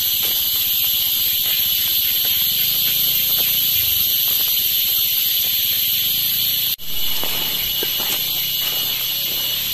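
Steady, high-pitched drone of forest insects. It cuts out for an instant about seven seconds in, then carries on.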